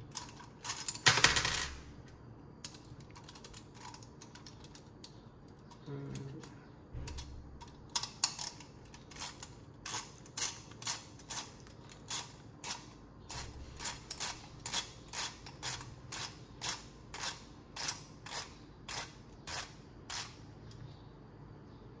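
Timemore Chestnut C3 ESP hand grinder being put back together: a brief clatter of parts about a second in, then a steady run of sharp clicks, about two a second, from roughly eight seconds in until near the end, as the stepped grind-adjustment dial is turned back to zero.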